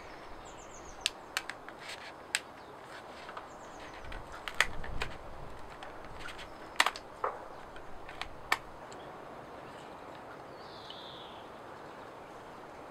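Scissors snipping through birch bark: a series of sharp, irregular snips. Faint bird chirps in the background, with one short falling call near the end.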